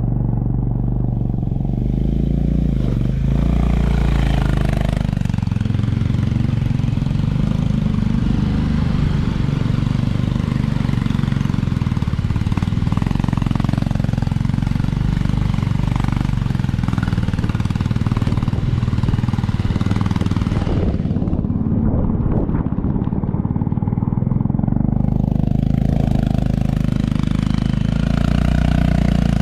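Motorcycle engine running steadily at low speed, with a hiss of wind or tyre noise over it that drops out for a few seconds about three quarters of the way through.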